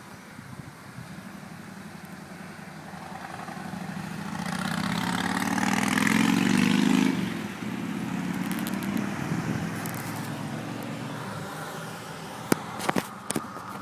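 A road vehicle passing by: it grows louder to a peak about seven seconds in, drops off sharply and then fades. A few sharp clicks near the end.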